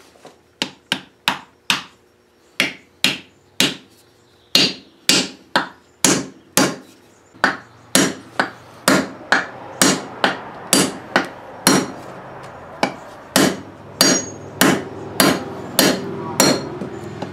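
A hammer driving a wooden wedge into the top of an axe handle, locking the antique Plumb axe head onto it. Quick sharp blows, about two a second, come in several runs with short pauses between them.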